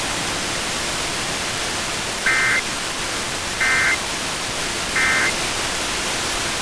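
Emergency Alert System end-of-message signal: three short, buzzy digital data bursts about a second apart, marking the end of the alert. They sit over the steady hiss of a weak FM radio signal.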